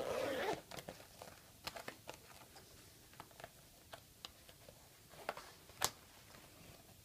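Hands handling a Filofax Malden leather organizer at its zip pocket: a brief louder rustle at the start, then light scattered clicks and rubbing, with one sharper click near the end.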